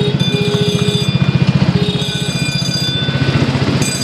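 Ride-on miniature railway train running, its locomotive giving a steady, rapid low pulsing, with thin high whining tones that come and go.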